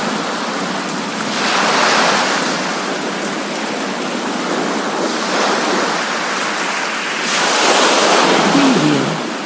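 Coastal sea waves washing in over a steady hiss of rain, the surf swelling about two seconds in and again near the end.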